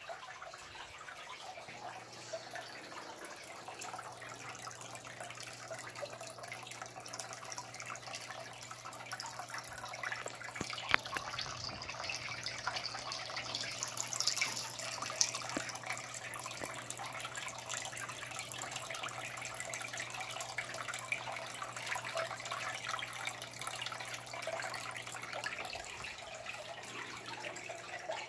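Water trickling and bubbling in a goldfish fry tank, a steady fizzing crackle with small scattered ticks, with a low steady hum starting about two seconds in and stopping near the end.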